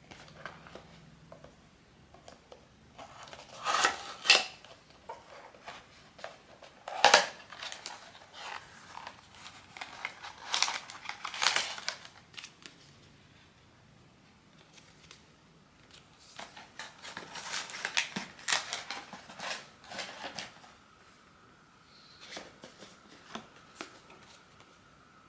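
Blind-box packaging being handled and opened by hand, with bouts of sharp clicks, snips and crinkling from plastic and cardboard. The loudest bouts come about 4 and 7 seconds in. A faint steady tone starts near the end.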